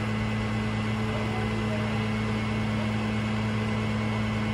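Truck engine running steadily to drive the hydraulics of a boom-mounted CrushR drum compactor, a constant low drone that holds one pitch.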